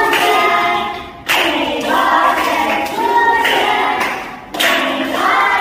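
A group of children singing together without accompaniment while clapping their hands, in phrases with short breaks about a second in and again near the end.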